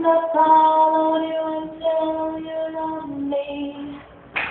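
A high voice sings long held notes over a pop song, dropping to a lower note about three seconds in. There is a short knock just before the end.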